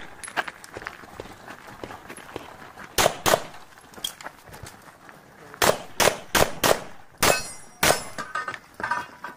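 Pistol shots at an IPSC stage: about eight shots, mostly in quick pairs, a pair about three seconds in and a rapid string of six from about halfway on. A faint metallic ringing follows near the end.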